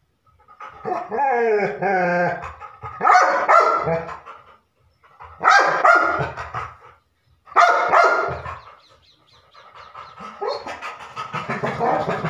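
Labrador retriever barking: a rising and falling whine about a second in, then three loud barks a couple of seconds apart, then a run of quick, softer huffs near the end.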